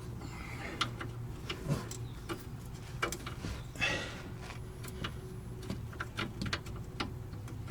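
Irregular light clicks and taps of hand tools and hardware being handled while fitting a rear shock absorber's mounting bolt, with a brief rustle about four seconds in.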